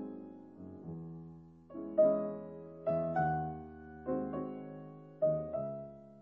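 Slow background piano music: chords and notes struck about once a second and left to fade.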